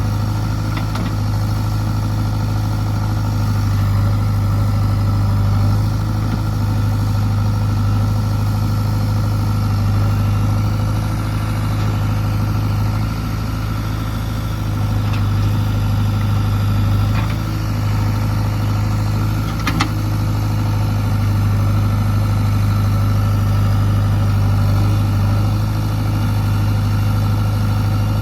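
Diesel engine running steadily at an even speed, with a couple of faint clicks in the second half.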